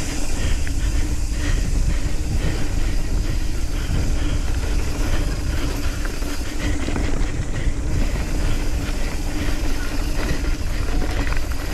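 Nukeproof Scout 275 hardtail mountain bike ridden fast down a rough dirt trail: continuous rattling and clattering from the bike over the bumps, tyre noise, and a heavy rumble of wind on the microphone.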